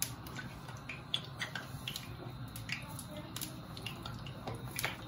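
Hands squeezing and rolling a soft, moist mashed-cassava vada mixture into balls, making scattered small sticky squishes and clicks over a steady low hum.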